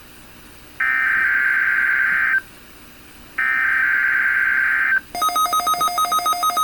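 NOAA Weather Radio SAME/EAS digital header for the weekly test: two bursts of high buzzing data tone, each about a second and a half long, a second apart. Just after the second burst, a rapidly pulsing electronic alert tone starts.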